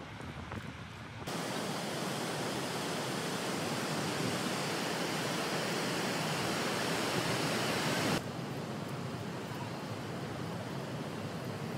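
Steady rush of river water pouring over a weir. It starts abruptly about a second in and drops to a quieter rush about eight seconds in.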